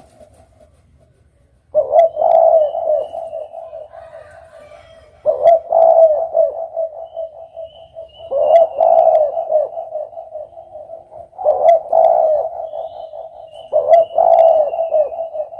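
Spotted dove (derkuku) cooing. It repeats its phrase about every three seconds, five times, after a short quiet start.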